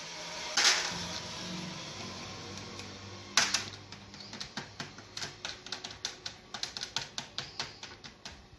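A fork's tines pricking the bottoms of small shortcrust tart shells on a metal baking tray: a fast run of light clicks, about four or five a second, after a brief rustle and a single sharp knock in the first few seconds. The pricking keeps the pastry from puffing up.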